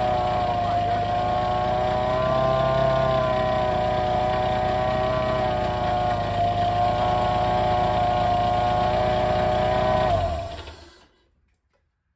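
Toyota 2ZZ-GE inline-four idling with a belt-driven SC14 supercharger spinning unloaded, its whine a steady high tone over the engine. The engine is switched off about ten seconds in and runs down to silence.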